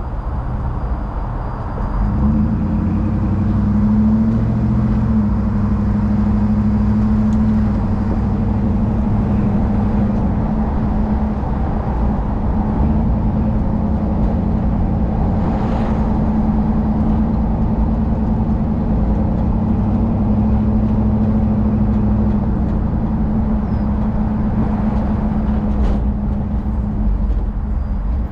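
Chevy Silverado 1500's 5.3L V8 running through a Flowmaster 40 Series muffler, a steady deep exhaust note. Its pitch rises about two seconds in, holds for long stretches, drops back a little after about twenty seconds and climbs again near the end.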